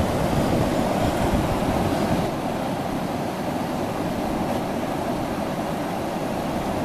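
Steady rush of river water pouring over a low dam, mixed with wind rumbling on the microphone; the sound drops a little about two seconds in.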